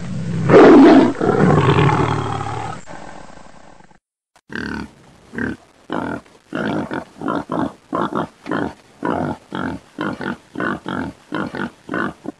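A wild animal growling loudly, the growl fading over about four seconds, then a long run of short, harsh huffs at about two a second.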